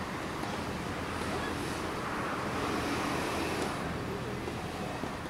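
Outdoor background noise, a steady rumble and hiss that swells through the middle and eases off toward the end.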